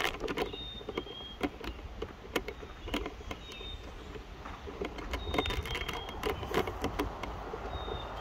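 Footsteps and handling clicks from someone walking across a lawn with a camera, irregular sharp knocks over a steady wind rumble on the microphone. A few short high chirps sound now and then.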